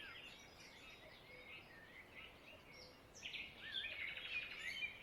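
Several small songbirds chirping and trilling over a faint hiss, the calls growing busier about three seconds in.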